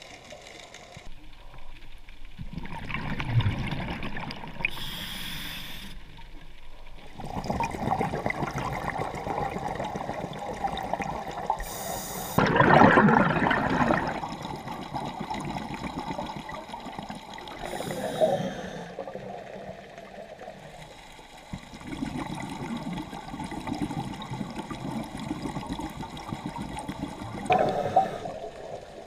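A scuba diver breathing through a regulator, heard underwater: about four short hissing inhalations several seconds apart, each followed by a gush of exhaled bubbles gurgling past, the loudest about a third of the way in.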